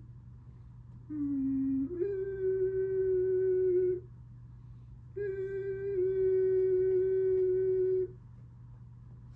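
Two-tone alert sounded twice, each about three seconds: the first time a lower tone for about a second steps up to a longer held tone, and after a short gap the second time a tone steps slightly down to a held tone. These are paging tones sent ahead of the daily siren test.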